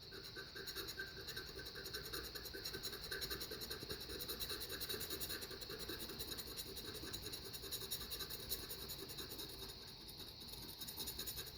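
A knife blade scraping the coating off a scratch-off lottery ticket in quick, faint, repeated strokes.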